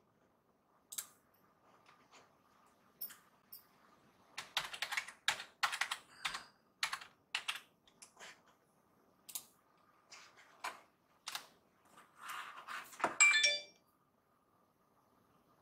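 Typing on a computer keyboard: irregular runs of key clicks with pauses between them, and a louder clack about two seconds before the end.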